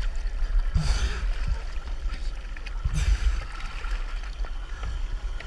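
Choppy sea water sloshing and gurgling around a camera held at the surface, with a steady low rumble and two louder splashes, one about a second in and one about three seconds in.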